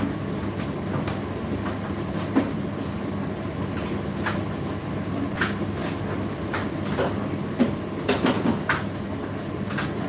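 Indesit IDC8T3 condenser tumble dryer running mid-cycle: a steady hum from the motor and turning drum, with irregular clicks and knocks as the load tumbles, a cluster of them near the end.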